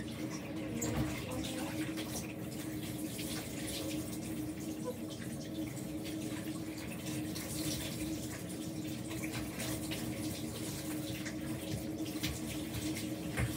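Handheld shower running steadily, water pouring over hair and splashing into a bathtub, with a faint low hum underneath.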